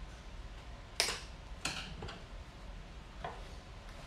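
Artificial floral stems being snipped with cutters: a few sharp clicks, the loudest about a second in and a fainter one near the end.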